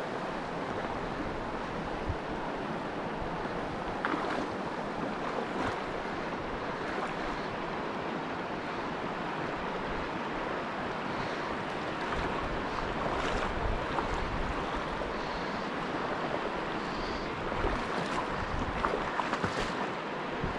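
Shallow river riffle rushing over a cobble bed, a steady even wash of moving water.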